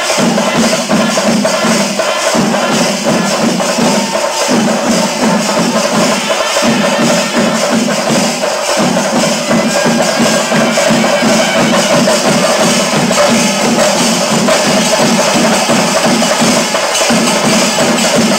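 Music with fast, dense percussion: jingling and clicking beats over a steady low drone.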